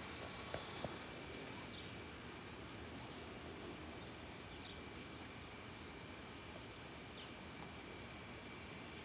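Faint outdoor ambience: a steady low hiss and rumble, with short high bird chirps now and then. Two soft clicks about half a second in.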